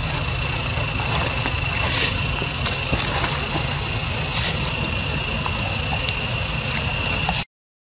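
Steady outdoor background noise: a low rumble with a steady high-pitched whine over it and a few faint clicks. The sound drops out completely for about half a second near the end.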